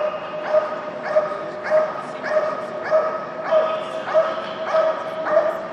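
Dog barking over and over in an even rhythm, about one bark every 0.6 seconds: a ring-sport dog's guard barking at the decoy standing over it.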